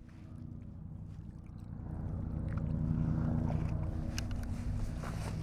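A boat motor's steady low hum that grows louder over the first few seconds, then holds.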